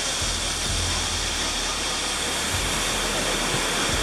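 Stream water rushing over boulders below a waterfall: a loud, steady hiss.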